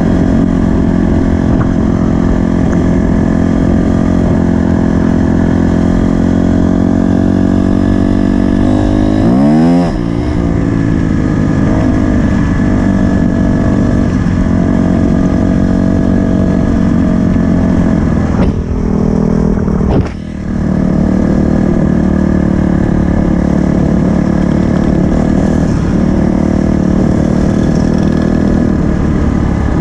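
2020 Honda CRF250R's single-cylinder four-stroke engine running under steady throttle while riding. The revs climb steeply just before ten seconds in, and the engine note briefly drops twice around twenty seconds in.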